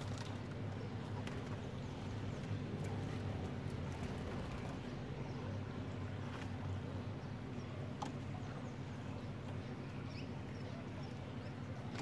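Steady low motor hum, with a few faint, high bird chirps and scattered clicks.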